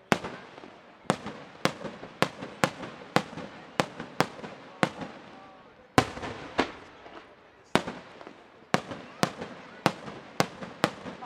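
Aerial firework shells bursting in quick succession, a sharp bang about every half second, each followed by a rolling echo, with a short lull about five seconds in.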